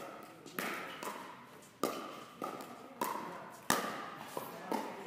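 Pickleball paddles striking a plastic ball in a fast rally: about seven sharp hits with a short ring, most about half a second apart.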